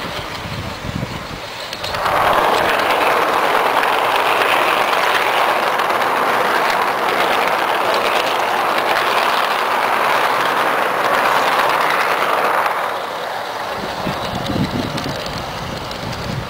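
Garden-scale model train rolling along its track, heard from aboard. About two seconds in the running noise turns into a much louder, steady rattle of wheels on rails as it crosses a truss bridge, and it drops back to a lower rumble near the end once the train is off the bridge.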